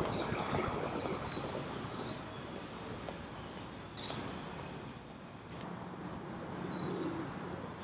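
Quiet outdoor park ambience: a low background hum with small birds chirping and pigeons cooing, and a single sharp click about four seconds in.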